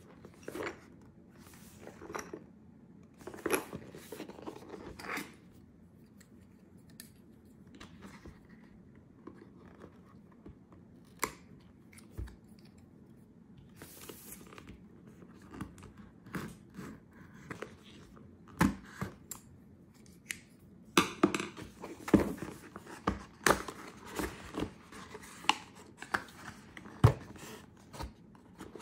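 Hands handling a small white cardboard product box: scattered taps, scrapes and rustles of card and paper with quiet gaps between them, growing busier and louder in the last several seconds as the box lid is lifted open.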